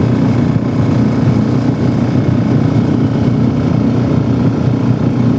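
Walk-behind tractor's single-cylinder engine running steadily at a constant speed, loud and close.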